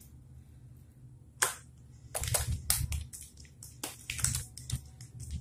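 Oiled hands slapping and pressing a thin sheet of msemen dough flat against a marble countertop: a run of short, wet slaps. The first comes about a second and a half in, then several in quick succession.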